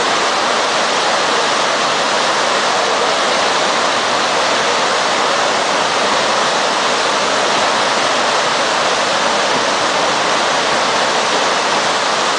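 Steady, unbroken rushing noise, even in level, with no separate events.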